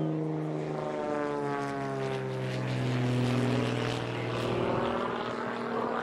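A light propeller aircraft flying past overhead. Its engine drones steadily and drops in pitch about a second in as it passes, then fades near the end.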